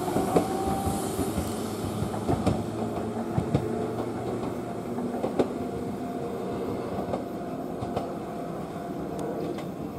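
JR West 103 series (3550 subseries) electric train pulling away and receding, its running noise slowly fading. Scattered sharp clacks of the wheels passing over rail joints.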